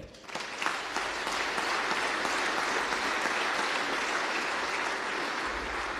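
Audience of many people applauding, starting about half a second in and holding at an even level.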